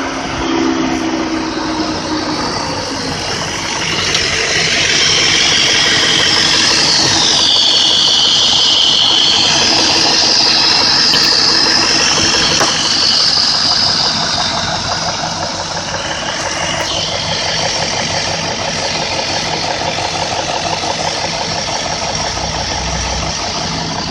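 A BMW E38 740i's 4.4-litre M62 V8 idling warm, heard up close, with the knock that the owner hears only when the engine is warm and places low at the back of the engine. A strong hiss swells about four seconds in and fades again before the end.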